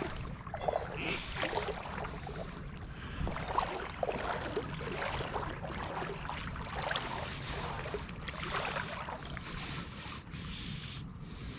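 Water sloshing and splashing in irregular strokes, with reeds rustling, as a hunter moves through shallow marsh water to retrieve a shot duck.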